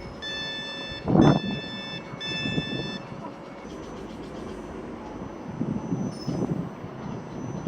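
A train's door warning sounding three long electronic beeps in quick succession. A dull thump comes about a second in, during the second beep.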